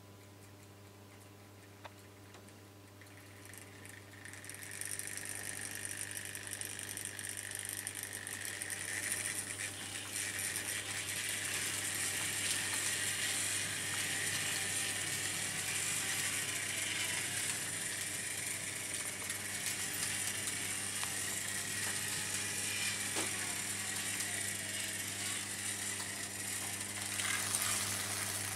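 Several Märklin H0 model trains running on tinplate M-track: metal wheels rattling and clattering over the pressed-steel rails and joints. The clatter sets in about four seconds in, after a quiet stretch with only a low steady hum.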